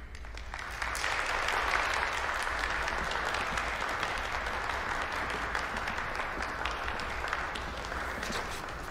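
A room of seated guests applauding, a dense patter of many hands clapping that builds over the first second and tapers off near the end.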